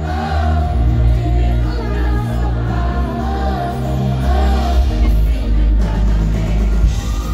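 Live pop song played loud through a concert PA: a woman singing into a microphone over the band's backing, with a strong, steady bass.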